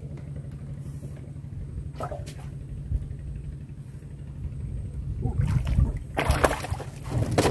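A hooked fish splashing and thrashing at the water's surface as it is hand-lined up to the boat, the splashing loudest over the last couple of seconds. A steady low rumble runs underneath.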